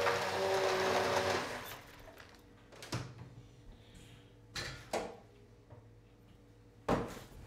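A small electric motor whirring with a steady hum that cuts off about a second and a half in, followed by a few sharp knocks and clatters of things being handled at a sink and counter, the last one near the end the loudest.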